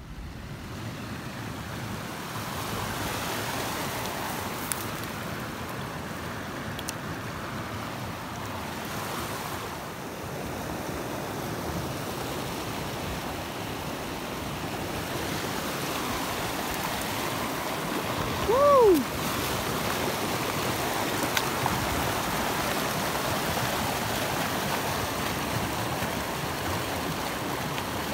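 Steady rush of a shallow mountain stream running over rocks. About two-thirds of the way through, a single short call rises and then falls in pitch, lasting about half a second.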